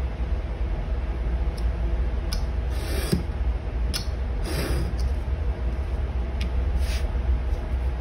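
Knife blade drawn through leather along a steel ruler: a series of short scratchy cutting strokes, the longest about three and four and a half seconds in, over a steady low hum.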